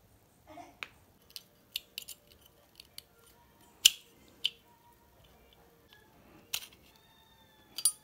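Scattered sharp metal clicks and knocks as the fan motor's parts (rotor shaft, bushing and metal housing) are handled and knocked together, the loudest knock about four seconds in.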